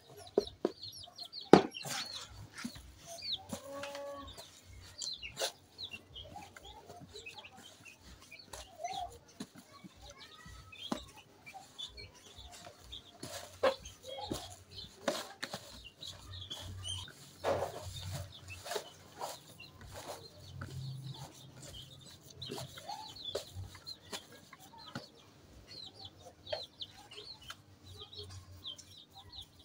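Hands squeezing and kneading a stiff dough of pounded ripe banana and maize flour in a plastic basin, with scattered squelches and knocks against the bowl, the sharpest about a second and a half in. Chickens cluck and small birds chirp in the background.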